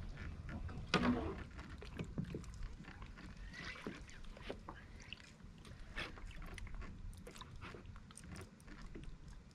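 Scattered faint clicks and knocks over a low, steady rumble, the loudest knock about a second in.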